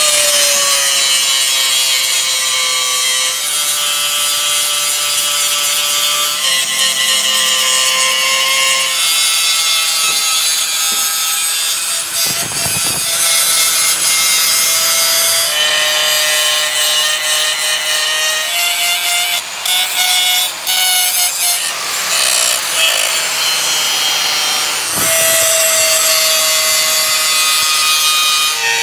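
A power tool working metal, a loud steady whine over heavy grinding hiss, its pitch shifting up and down every few seconds.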